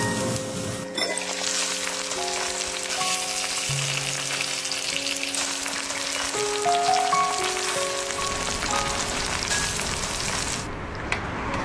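Food sizzling in hot oil in a pan, a dense steady crackle that cuts off abruptly about a second before the end, under background music with long held notes.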